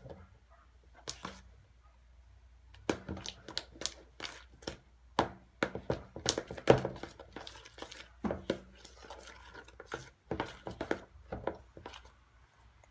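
A spatula stirring sticky, borax-activated glue slime in a plastic bowl, giving irregular wet clicks and scrapes. Sparse in the first couple of seconds, then rapid and dense as the stirring speeds up.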